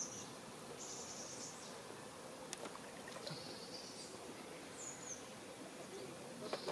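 Quiet pond-side ambience: insects giving short, high-pitched bouts of chirring a few times, with a brief small bird chirp, over a faint hiss. A couple of light clicks come through as well.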